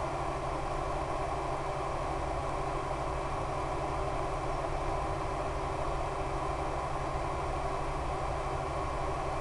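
E-flite Power 10 brushless electric motor driving an 11x7 APC propeller on a HobbyZone Super Cub RC plane in flight: a steady, unchanging drone with a rushing noise, holding the same pitch throughout.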